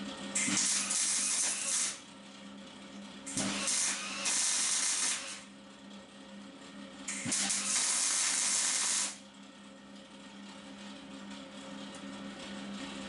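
Gas-shielded MIG welder laying three short welds on steel box-section framework, each a hissing burst of about a second and a half to two seconds, with pauses between. A steady low hum runs underneath.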